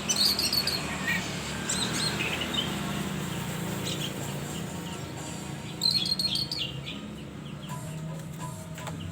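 Young Oriental magpie-robin (a speckled 'trotol' juvenile) calling in bursts of quick high chirps and whistles, loudest at the start and again about six seconds in, over a low steady hum.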